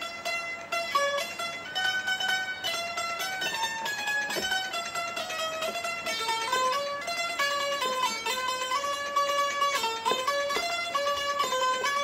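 Bulbul tarang (Indian banjo), a keyed zither with metal strings, playing a solo melody line: quickly picked, ringing notes stepping up and down, several to the second.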